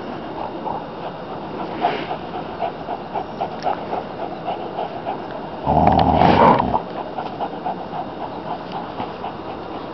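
A dog and puppies play-tugging on a shoe, giving a steady run of low pulsing play-growls, about four pulses a second. Just past the middle, a loud rushing burst lasts about a second.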